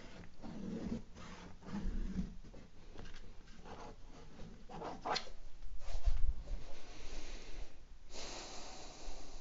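Soft pastel rubbed and scratched across the painting surface in short strokes, with handling noises and a dull low knock about six seconds in.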